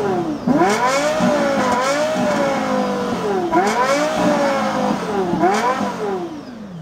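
Lexus LFA's naturally aspirated V10 revved hard while the car stands still: three quick stabs of the throttle, near the start, about three and a half seconds in and about five and a half seconds in, each sending the revs shooting up and then sinking slowly, falling back toward idle near the end.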